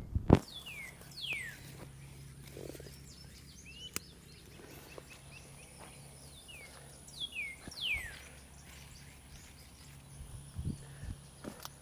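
A bird calls with short whistled notes that slide downward, in a group of a few near the start and another group about two-thirds of the way through. A sharp thump right at the start is the loudest sound, and a few softer knocks come near the end.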